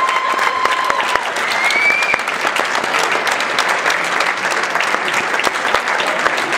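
Theatre audience applauding steadily at a curtain call, with a held whistle that ends about a second in and a short rising whistle about two seconds in.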